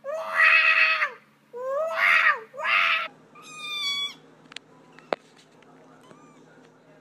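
A black cat gives three loud, harsh yowls in the first three seconds, then kittens mew in high, clear cries. Near the end there are two sharp clicks and a few faint mews.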